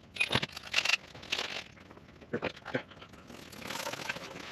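Handling noise: rustling and crinkling of nylon fabric, with a few short clicks and knocks of hard plastic. The sounds come in irregular bursts, louder in the first second and a half and again near the end.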